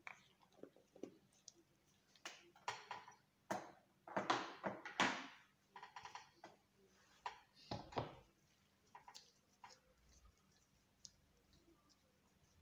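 Scattered clicks, taps and brief rustles of small objects being handled, busiest in the middle and thinning out toward the end.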